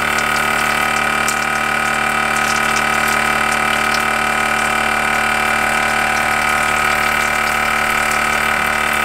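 Small electric water pump running steadily with a constant hum, feeding a portable propane shower heater, with shower water running.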